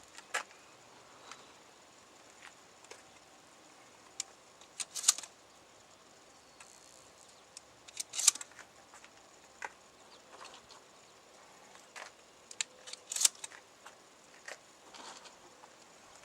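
Scattered sharp metallic clicks and clacks from a Remington 870 12-gauge pump shotgun being handled while birdshot shells are loaded into its tube magazine, some coming in quick pairs.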